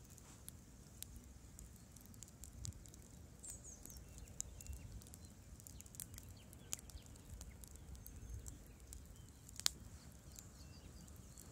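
Wood campfire crackling, with irregular sharp pops and one louder pop near the end.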